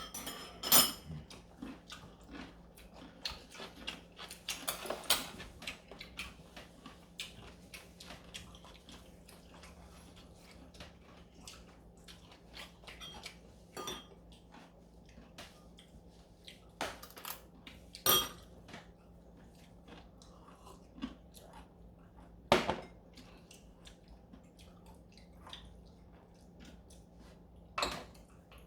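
Spoons and chopsticks clinking against bowls during a meal of galbitang, with scattered sharp clinks and soft chewing in between.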